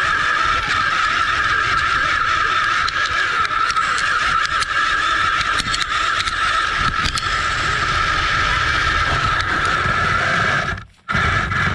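RC off-road buggy's motor and drivetrain whining steadily at speed, heard from a camera on the car, with the chassis and tyres rumbling over rough ground. The whine cuts out briefly near the end.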